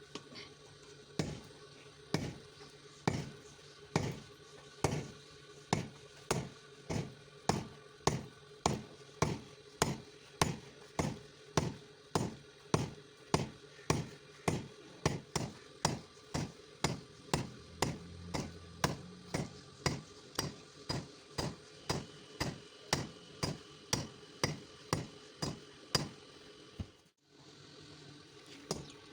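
Hand hammer forging a steel rod on an anvil into blacksmith tongs: steady, evenly paced blows at about two a second, each with a short metallic ring. The blows stop abruptly near the end, then start again.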